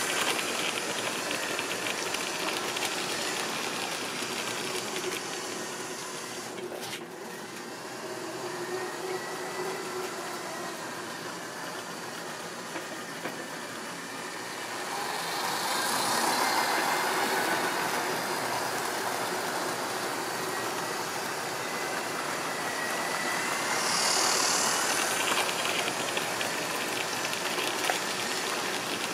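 Tri-ang and Lima OO-gauge model trains running on sectional track: a steady motor whine and wheel rattle, getting louder as trains pass close by about halfway through and again near the end.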